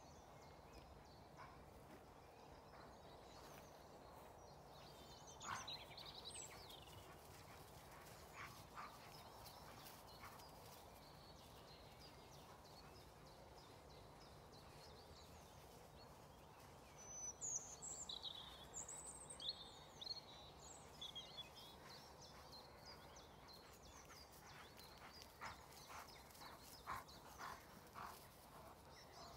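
Quiet outdoor ambience with small birds chirping now and then, most busily about two-thirds of the way through, and a few brief sharp sounds.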